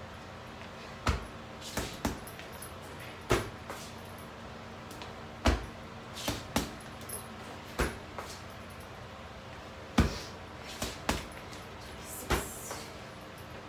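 Boxing-gloved punches landing on an Everlast heavy bag: about a dozen dull thuds at an uneven pace, one to two seconds apart, with a brief higher rustle near the end.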